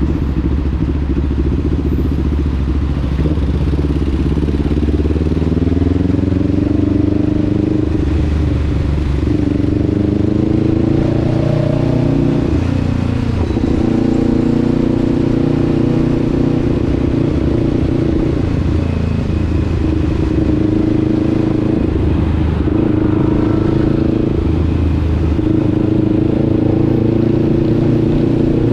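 Motorcycle engine running under way, its pitch climbing over the first few seconds, then holding with several brief dips and recoveries, as with gear changes or throttle lifts.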